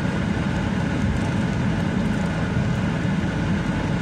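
Steady low rumble inside an airliner's cabin as it taxis on the ground: engines running at low power and the hum of the cabin.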